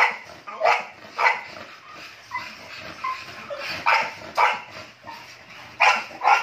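A dog barking in short, sharp barks, about seven of them, mostly two in quick succession, with a pause in the middle.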